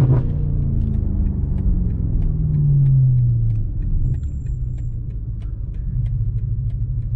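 BMW M5 Competition's twin-turbo V8 running at low revs under way, with road and tyre rumble underneath. Its note falls as it slows, about two to three and a half seconds in, then settles.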